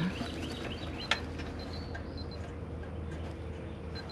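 Outdoor ambience: small birds chirping in short repeated calls over a low steady hum, with one sharp click about a second in.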